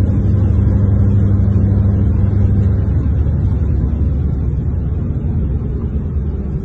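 Steady low drone of a car driving at highway speed, heard from inside the car: a mix of road and engine noise. Its hum steps slightly lower in pitch about three seconds in.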